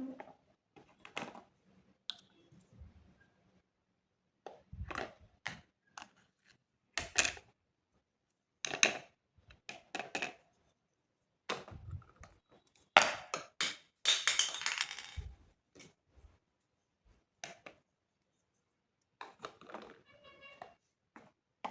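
Miniature toy kitchen pieces being handled: a scattered series of small taps, clicks and knocks, with a longer scraping rustle about two-thirds of the way through.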